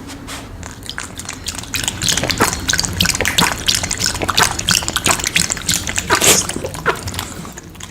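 Dog licking and smacking its lips while eating chicken: a quick, irregular run of wet clicks and slurps.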